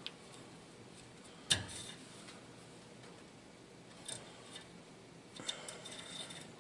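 Light metallic clicks and clinks of hand tools and brake-line parts being handled. The sharpest is a single ringing clink about a second and a half in, with a few softer taps near the end.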